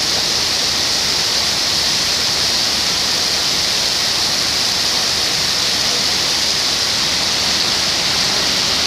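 Heavy downpour: a loud, steady hiss of pouring rain.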